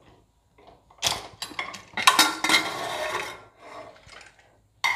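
Metal clatter of an open pressure cooker being handled on a gas stove's pan support: a couple of sharp knocks about a second in, then a longer, louder clattering rattle with some metallic ringing for over a second.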